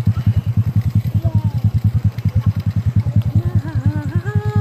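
Motor scooter engine idling with an even, rapid putter of about ten beats a second. A high-pitched voice rises and falls over it near the end.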